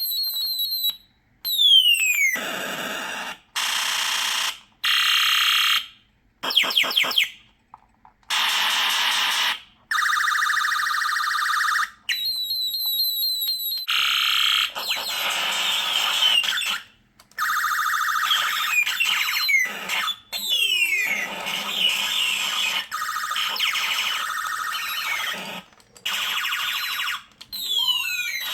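Retro video-game space sound effects from a circuit-bent toy gun's Space War sound chip: a string of short electronic bursts with brief gaps between them, made up of beeping tones, falling laser-like zaps and buzzing, warbling noises that change from one trigger press to the next.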